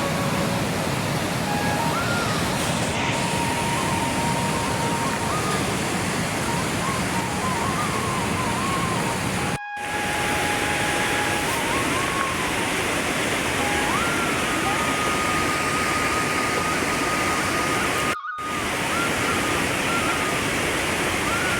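Steady, loud rushing water, with a thin, faint melody of held notes and slides above it. It cuts out briefly twice, at about ten and about eighteen seconds in.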